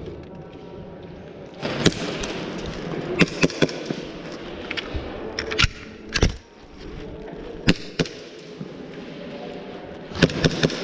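Airsoft gunfire during close-quarters play: sharp cracks and hits at irregular intervals, some in quick runs of two or three, over the rustle of movement.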